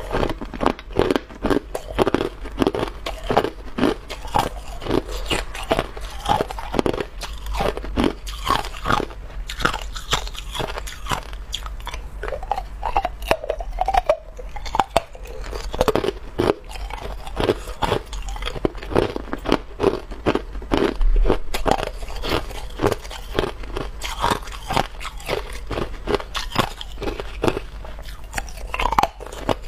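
A person biting and chewing clear hard ice, close to the microphone: a continuous run of sharp cracks and crunches as the ice breaks between the teeth.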